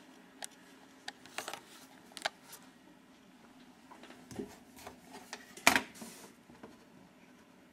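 Scattered light clicks and knocks of hands handling things on a computer desk, a mouse and a small webcam, with one louder knock a little before six seconds in, over a low steady hum.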